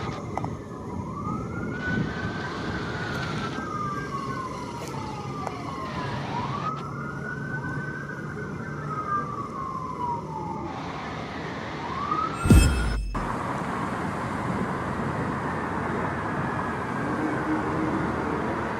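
Emergency vehicle siren wailing in slow rising and falling sweeps every three to four seconds, over steady traffic noise. A sharp thump about twelve and a half seconds in is the loudest moment.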